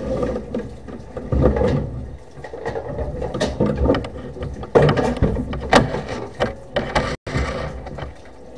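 Sewer inspection camera being pulled back up the line, its push cable and camera head knocking and scraping against the pipe in irregular clicks and rattles.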